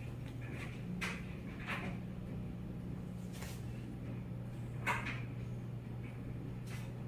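Several light knocks and clicks, the loudest about five seconds in, over a steady low hum.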